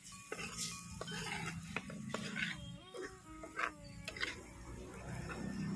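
A metal spoon stirring dry fish fry in a clay pot, scraping and knocking against the pot in irregular clinks.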